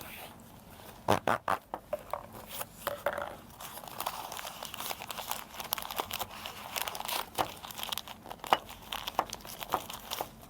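Plastic packaging bags crinkling and rustling as they are handled and opened, with many irregular sharp crackles.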